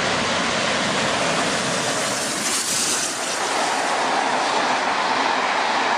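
A1 Pacific steam locomotive 60163 Tornado passing at speed with its safety valves lifting: a loud, steady roar of blowing steam, the sign of a boiler at full pressure, over the rush of the train. A brighter hiss comes about two and a half seconds in, and near the end the rumble of the passing coaches takes over.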